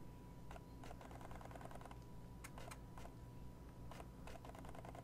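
Faint scattered clicks, some in short rapid rattling runs, over a low electrical hum and a thin steady high tone.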